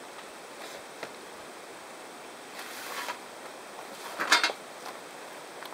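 Steady outdoor background noise, with a small click about a second in and a short, sharp scrape a little after four seconds, the loudest sound.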